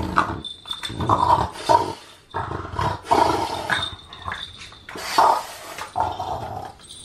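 French bulldog chewing and tugging at a rubber treat ball tied to a suction-cup rope toy, making dog noises in short irregular bursts as it plays.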